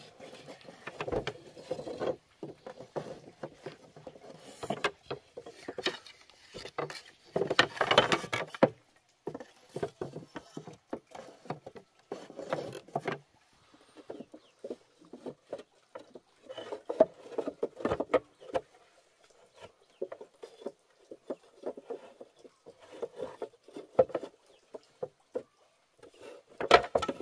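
Irregular knocks, scrapes and creaks of bamboo being handled and worked, in short uneven bursts with gaps between them.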